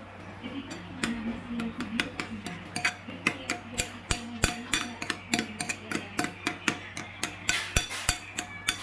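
Kitchen utensils knocking and clinking in a quick, uneven run of sharp hits, starting about a second in, over a steady low hum.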